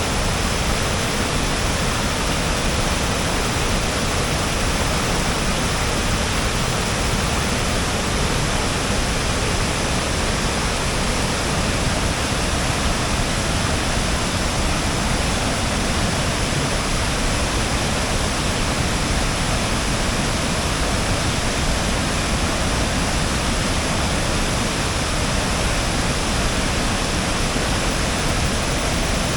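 Waterfall on the YS River: a steady, loud rush of falling water.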